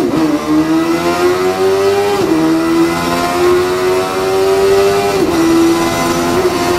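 Honda CB400 Super Bol d'Or's 400 cc inline-four with HYPER VTEC Revo at full throttle, held high around 11,000–12,000 rpm. The note dips briefly at three quick upshifts, right at the start, about two seconds in and about five seconds in, and climbs slowly again after each.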